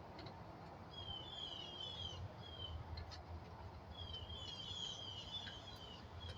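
Small birds chirping: runs of short, quick, falling chirps, one about a second in and another about four seconds in, over a steady low background hum.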